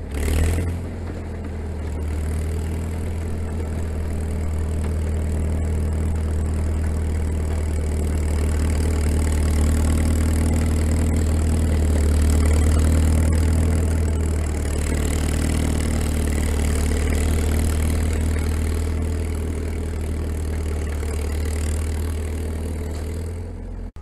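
Engine of a small machine running steadily at close range as it moves a trailer, with a deep, even hum that grows a little louder toward the middle and eases near the end.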